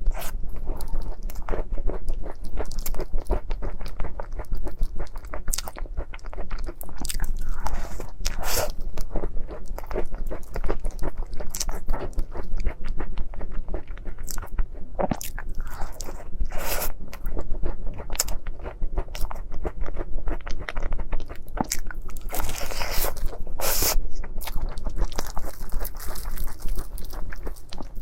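Close-miked eating sounds: a person biting and chewing soft dessert in a continuous run of wet mouth clicks and smacks.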